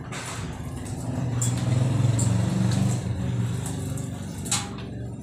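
Low engine rumble of a passing vehicle, swelling about a second in and fading again over the next few seconds.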